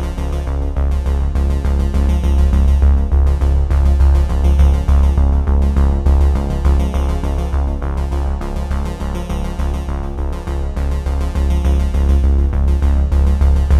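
Background electronic music: synthesizer over a steady beat and heavy bass.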